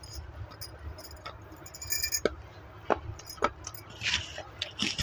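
Close-up crunching as a piece of black slate stone coated in wet white chalk is bitten and chewed: several sharp cracks about two to three and a half seconds in, then gritty crunching near the end.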